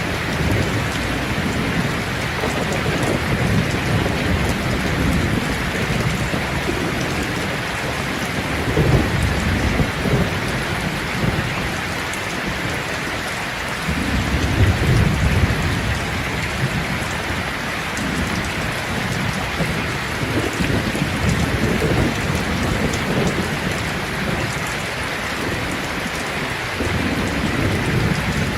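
Steady rain falling, with low rolls of thunder swelling up about 9 seconds in and again, loudest, around 15 seconds in.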